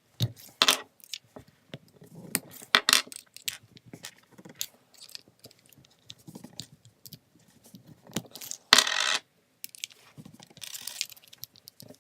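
Small metal parts of a fidget spinner clicking, clinking and scraping as it is taken apart by hand, its bearing being worked out of the body. Scattered irregular clicks, with a short louder scrape about nine seconds in.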